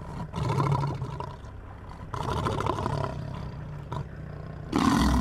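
Lion roaring: two long, deep roars in the first three seconds, then quieter calling. Music starts near the end.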